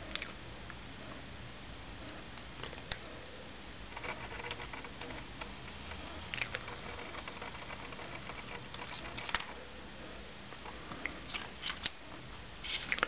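Tyson balsa stripper's blade drawn along an aluminum template through balsa rib stock: faint scraping strokes and a few light clicks, over a steady hiss with a thin high whine.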